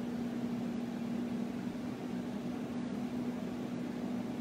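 Simple Living Products 5.8-quart air fryer running, its fan giving a steady hum with one clear, even tone.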